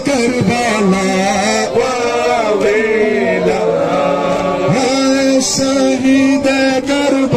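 Male voices singing a noha, a Muharram mourning lament, in long wavering held notes.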